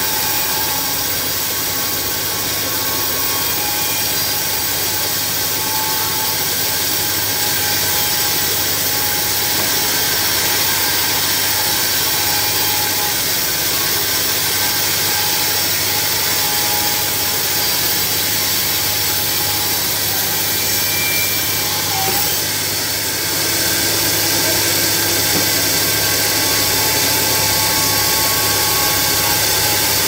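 Sawmill bandsaw running and sawing lengthwise through a large log: a loud, steady machine noise with a constant low hum and hiss, dipping briefly about twenty-two seconds in.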